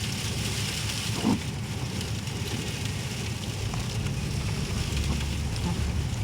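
Steady low engine and road rumble inside a moving car, under a constant hiss of blizzard wind and snow against the car. A brief short sound about a second in.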